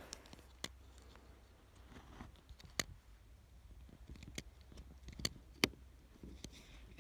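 Handling of a plastic AirPods case as it is worked over with chewing gum: quiet fumbling with about half a dozen sharp clicks at irregular intervals, the loudest about three seconds in.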